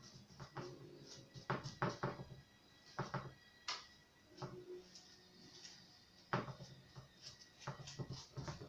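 Faint light knocks and clicks as a paintbrush is dipped in a paint pot and worked over a frame of dry twigs, over faint background music.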